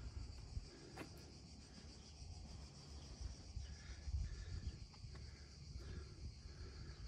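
Faint, steady chorus of cicadas: a high, shrill buzz that pulses evenly, over a low rumble.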